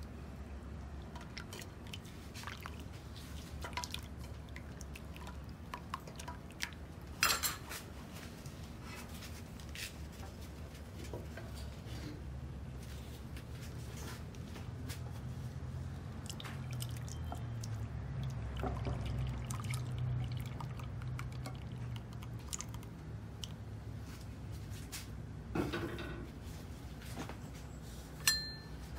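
Soy milk mixed with cornstarch and GDL coagulant being poured and ladled into a glass baking dish to set as tofu pudding. A metal ladle and spoon give a few sharp clinks against the pot, bowls and glass, the loudest about seven seconds in and near the end, over a steady low hum.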